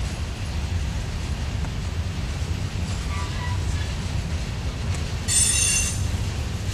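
Freight train of covered hopper cars rolling past on curved track: a steady low rumble of wheels on rail, with faint wheel squeals about three seconds in and a loud, high-pitched wheel squeal a little past five seconds, lasting under a second.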